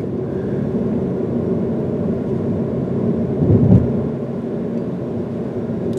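A car driving: steady low engine and road rumble, swelling briefly about three and a half seconds in.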